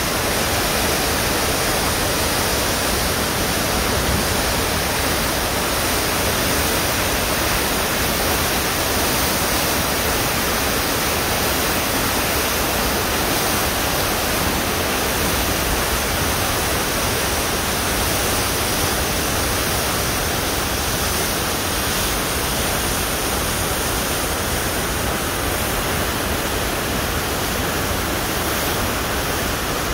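Floodwater of the South Esk River rushing through whitewater rapids over rocks: a steady, unbroken rush of water.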